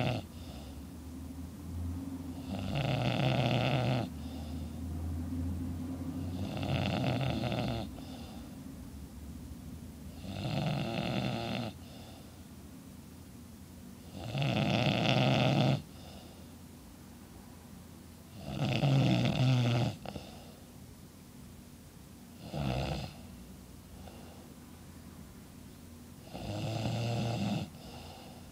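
A man snoring loudly in his sleep, one long snore about every four seconds; one snore near the end is much shorter than the rest.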